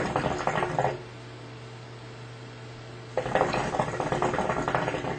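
Shisha (hookah) water bubbling as smoke is drawn through the hose: one pull ending about a second in, then a second pull from about three seconds in until near the end.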